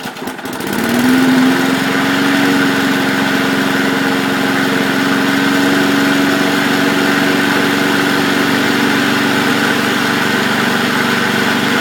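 Briggs & Stratton single-cylinder engine on a 20-inch push lawn mower starting after priming: it catches at once, rises in pitch over about a second, then runs steadily and loud.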